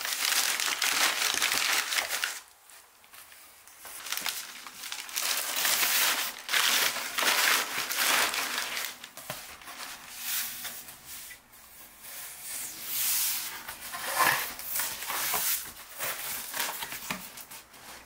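Paper or plastic wrapping crinkling and rustling as it is handled, in irregular bursts with short pauses.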